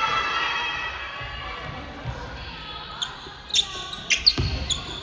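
Crowd voices echoing in a large hall, fading out over the first second or two. Then come scattered sharp high squeaks and clicks, with a low thud about four seconds in.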